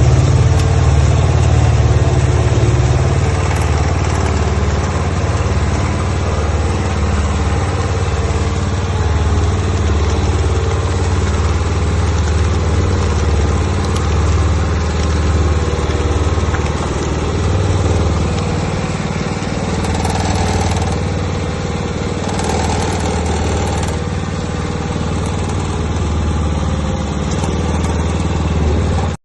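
Half-bag concrete mixer running, its engine driving the drum with a loud, steady low hum that ends abruptly.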